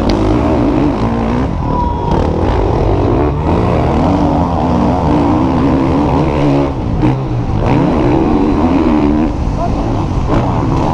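Motocross bike engine revving hard, its pitch climbing and dropping again and again as the rider opens and closes the throttle and shifts gears.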